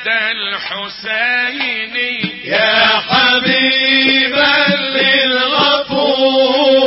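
Male voice singing an Aleppine Islamic nasheed in an ornamented, melismatic line, moving into long held notes about halfway through.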